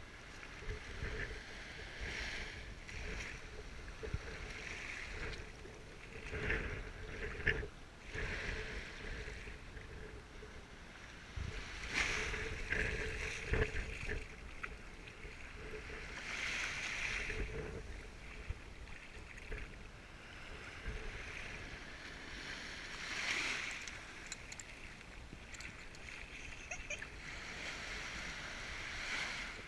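Small waves washing in and out over a sandy beach, swelling and falling every few seconds, with wind buffeting the microphone.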